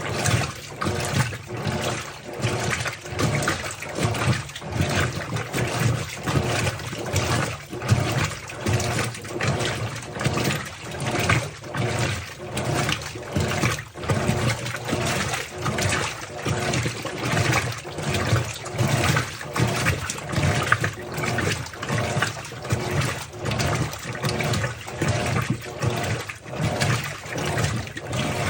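Colormaq LCA15 washing machine churning water in its tub, the sloshing surging in a steady pulsing rhythm with a low hum of the drive underneath.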